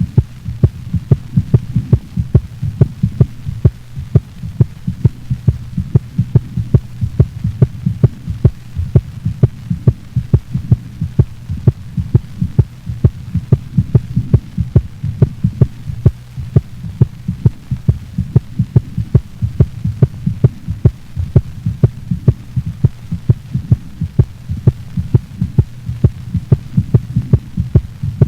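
A dog's heart sounds recorded through a stethoscope: a regular run of beats, a few a second, over a steady low hum.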